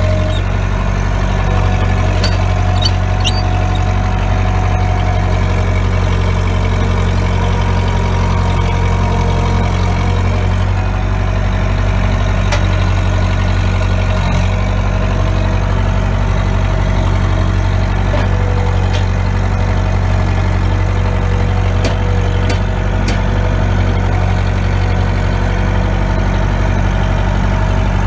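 Bobcat 943 skid steer's four-cylinder Perkins diesel engine running steadily, with a slight change in its note about eleven seconds in and a few light clicks over it.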